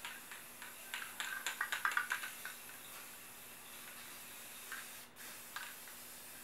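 Aerosol spray-paint can hissing steadily as paint is sprayed in sweeping passes, with a quick run of clicks about a second in and a brief break in the spray about five seconds in.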